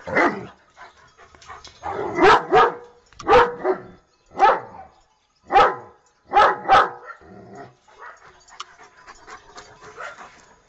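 German Shepherd barking in a run of single and paired barks, about eight over the first seven seconds, then only softer scattered sounds near the end.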